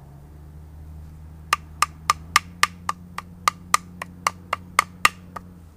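Wooden mallet striking a cutting tool into a piece of hard, knotty wood to cut a dovetail notch: about fifteen sharp knocks, roughly four a second, starting about a second and a half in.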